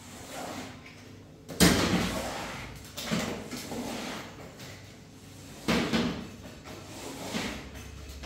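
A series of about four sharp knocks and bangs from things being handled in a kitchen, the loudest about a second and a half in, each dying away over about a second.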